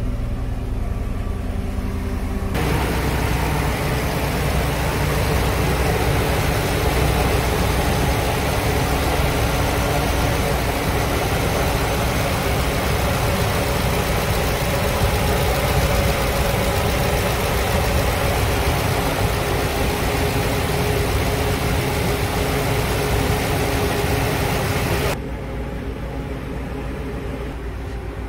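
Ford F-350 Super Duty's 6.2-litre gasoline V8 idling steadily. About two seconds in it gets much louder and noisier as it is heard close up under the open hood, and near the end it drops back to a quieter hum.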